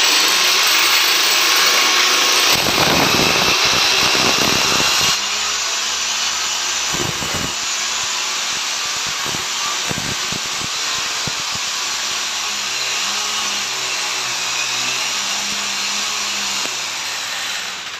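Corded electric drill with a masonry bit boring into a wall, running steadily. It is a little louder for the first five seconds and stops just before the end as the bit is pulled out of the hole.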